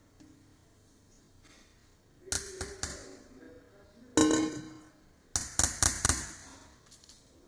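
Hard objects clinking and knocking in three short bursts, about two, four and five and a half seconds in; the middle knock is the loudest and rings briefly.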